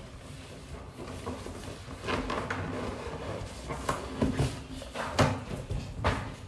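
Latex party balloons being handled and knotted by hand: rubber rubbing and squeaking, with a few soft knocks spread through.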